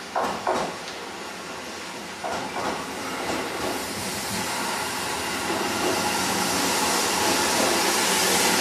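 Aichi Kanjo Railway 2000 series electric train running into the station and past on wet track, its rumble and hiss growing steadily louder as it nears. Two pairs of short knocks, at the start and about two seconds in, from wheels going over rail joints.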